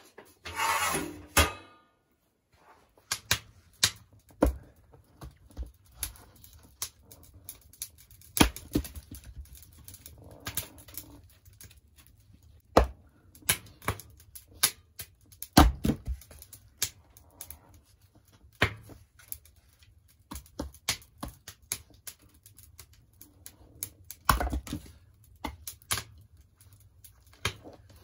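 Wood fire crackling and popping in a sheet-metal barrel stove, with sharp, irregular clicks and knocks, mixed with the chops of a hatchet splitting kindling on a wooden chopping block.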